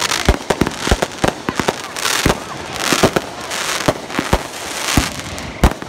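Aerial fireworks going off: many sharp bangs in quick succession, with several stretches of crackling and hiss from bursting shells.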